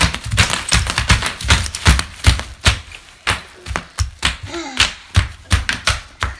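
Bubble wrap popping under children's bare feet: sharp, irregular pops, several a second, many with a dull thump of the foot landing on the wood floor.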